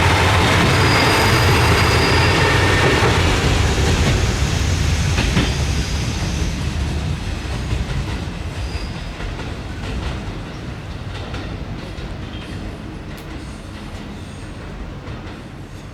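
KiHa 200 series diesel railcar train running past, with engine and wheel rumble that fades steadily as it moves away. Faint clicks of the wheels over rail joints follow.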